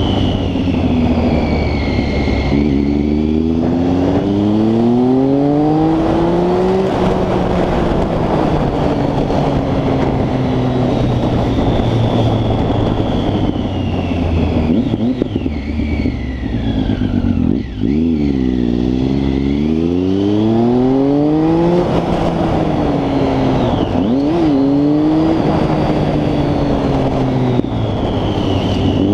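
Triumph Street Triple 675's three-cylinder engine through a full Arrow exhaust, its note climbing slowly in pitch for several seconds, holding steady, then dropping away. It climbs again twice, with a quick dip and recovery about three-quarters of the way through.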